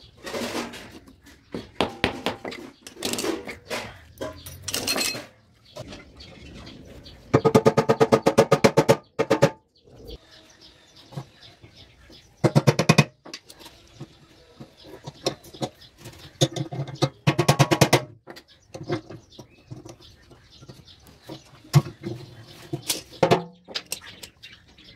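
Pliers working a small metal pin and washers on a steel wheel axle: scattered metal clicks and taps, with several quick rattling runs of one to two seconds, the longest about a third of the way in.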